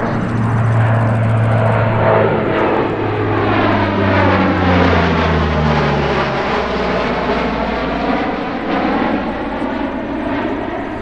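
Lockheed C-130 Hercules flying a low pass, its four turboprop engines and propellers giving a loud, steady drone. The low propeller tone drops in pitch as the aircraft passes close by about halfway through, then the sound eases off as it heads away.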